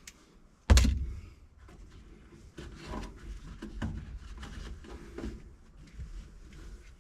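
One heavy thump about a second in, followed by scattered lighter knocks and clatter of hands working with parts.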